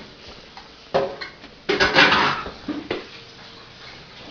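Keys jangling and clicking in a door lock as the door is unlocked from outside: sharp metallic clinks about a second in, then a louder rattle of keys and lock.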